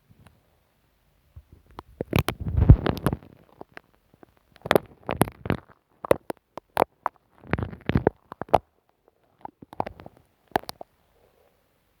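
Glue stick rubbed and dabbed directly on the microphone, giving close, muffled sticky rubbing with deep thuds and sharp clicks. It comes in about five short bursts, each followed by a brief pause.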